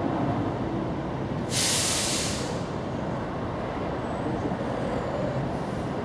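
A sudden hiss starts about one and a half seconds in and fades out over about a second, over a steady low rumble.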